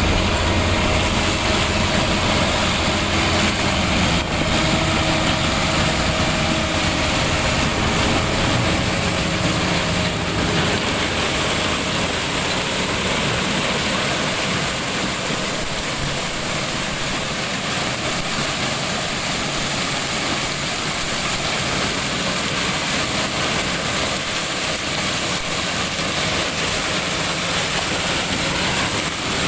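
Diesel engine of a large farm tractor running steadily while working a field, with a constant hiss; its low rumble weakens about ten seconds in.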